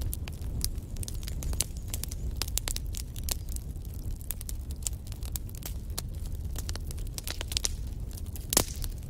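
Wood fire crackling in a fireplace: frequent sharp pops and snaps over a low steady rumble of the flames, with one louder pop near the end.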